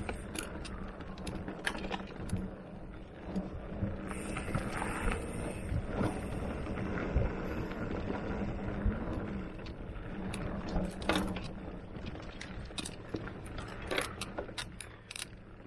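Mountain bike rolling along a dirt singletrack: steady tyre and riding noise with the chain and parts rattling, and sharp clicks and knocks over bumps, loudest about two, eleven and fourteen seconds in.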